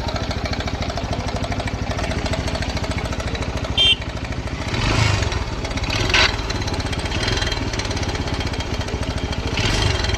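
TVS Star City BS6 motorcycle's single-cylinder four-stroke engine idling with a steady, even beat, heard close up on the side opposite the magneto cover, carrying an abnormal mechanical noise from inside the engine whose part is not yet known. A short sharp click sounds about four seconds in.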